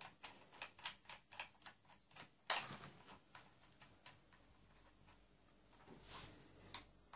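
A run of light, evenly spaced clicks, about four a second, as a part is turned by hand onto the front end of a G&G M1 Garand airsoft rifle. A louder click comes about two and a half seconds in, then a few scattered clicks and a brief rustle.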